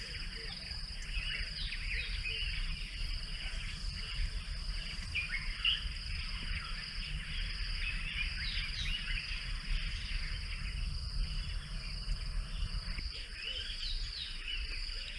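Bush ambience: a steady high-pitched insect drone with many short bird chirps scattered over it, and a low rumble underneath.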